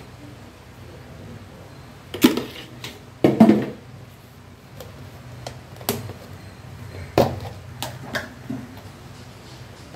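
Kitchen utensils knocking and clattering: about half a dozen sharp, irregular knocks, the loudest a cluster about three seconds in, over a low steady hum.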